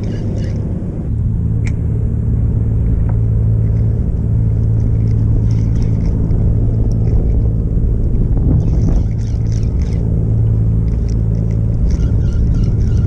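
Steady low hum of a boat engine running, with the sound of choppy water around the kayak.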